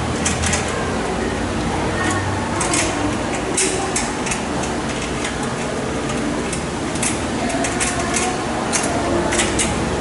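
Scattered light clicks and taps of a metal network switch's mounting ears being fitted against steel rack rails, over steady background noise.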